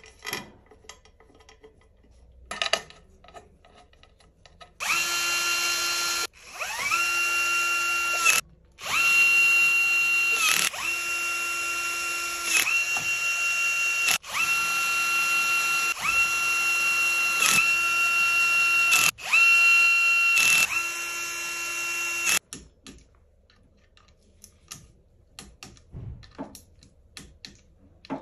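Cordless drill/driver spinning in about ten short trigger pulls, each a steady whine that spins up quickly and stops after one to two seconds, running bolts into the rear of a BMW N47 engine block. Light clicks and taps of bolts being handled come before and after.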